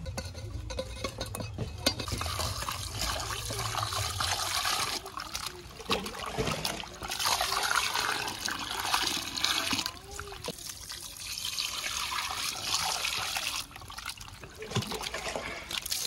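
A stream of water pouring and splashing into an aluminium pot of raw chopped chicken pieces while hands rub and slosh the meat clean. The flow comes in several spells with short breaks.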